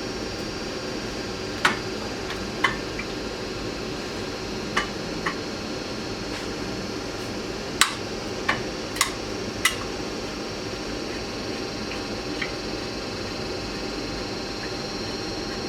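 Scattered sharp clicks and taps, about nine at irregular intervals, from working the small screws out of a headlight's chrome trim ring, over a steady background hum.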